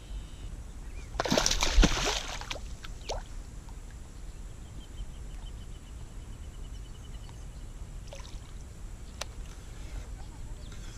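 A splash at the water's surface about a second in, lasting about a second. After it comes a quiet outdoor background with a faint run of rapid ticks.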